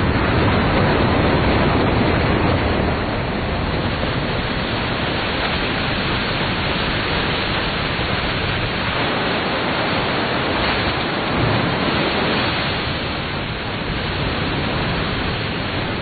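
Alexandra Falls on the Hay River in spring flood: a steady, heavy rush of water pouring over the falls, carrying mud and broken ice.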